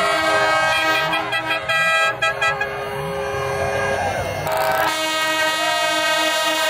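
Several air horns blowing together in long overlapping blasts from a crowd of fans, with cheering and shouting mixed in.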